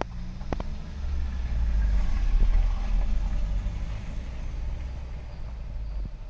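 A motor vehicle passing, its low engine rumble swelling for about two seconds and then fading away. Two sharp clicks sound near the start.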